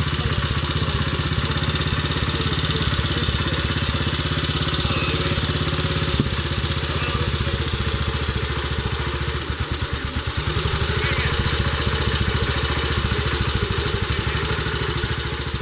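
Motorcycle engine running steadily, dipping briefly about ten seconds in.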